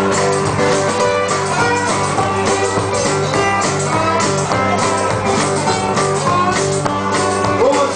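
Live band playing an instrumental passage, led by guitar over a steady drum beat, with no vocals.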